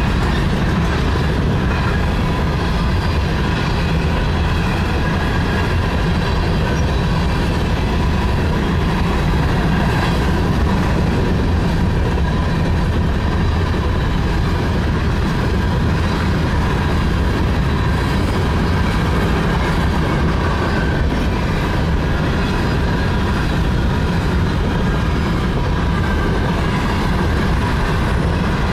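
Union Pacific coal train's coal cars rolling past close by, a steady, continuous rumble and rattle of steel wheels on the rails.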